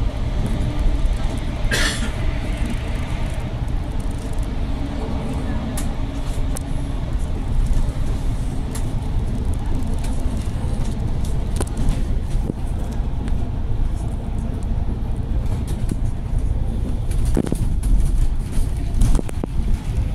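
Steady low rumble of a bus's engine and tyres heard from inside the moving bus as it drives through a road tunnel, with a brief rattle about two seconds in.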